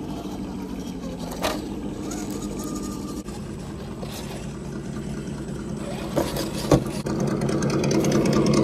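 RC crawler trucks' electric motors and gear drives whining steadily as they climb over tree roots, growing louder near the end, with a few sharp knocks of tyres and chassis against the roots.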